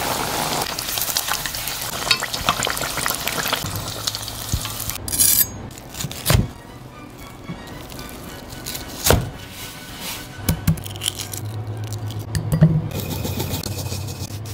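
Breaded Japanese spiny lobster deep-frying in hot oil, a dense sizzle over the first four seconds, followed by a few sharp knocks and clicks, with background music throughout.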